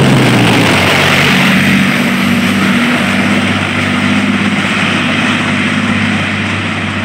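Leopard main battle tank driving past and away on its tracks: the steady drone of its diesel engine with track noise over it, slowly fading as it moves off.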